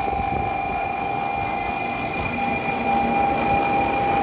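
N700 series Shinkansen train pulling in alongside the platform: rolling noise with a steady high whine over it, getting a little louder about two and a half seconds in.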